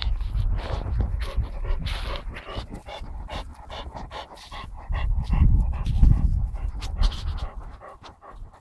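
Chow chow panting close to the microphone, with scattered rustles and knocks. Heavy low rumbling on the microphone comes at the start and again about five seconds in.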